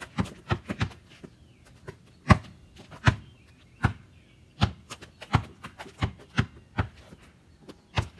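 Basketball being dribbled: a string of sharp bounces at an uneven pace, four in quick succession near the start, then roughly one every half second to second.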